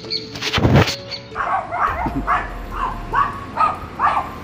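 A short, loud rush of noise about half a second in, then a dog barking over and over, about two to three barks a second.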